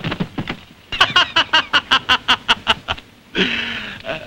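A person laughing in a fast run of short ha-ha pulses, about seven a second, for roughly two seconds, followed near the end by a shorter held sound.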